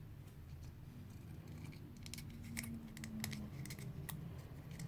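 Foil-coated cardstock being handled and pressed together, giving scattered small clicks and crinkles over a faint low hum.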